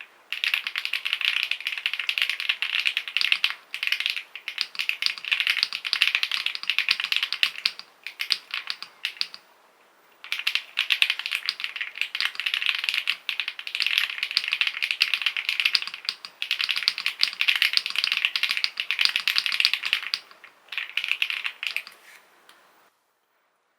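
Fast typing on a custom mechanical keyboard with creamy-sounding switches, in dense runs of keystrokes broken by a few short pauses. The typing stops a little before the end.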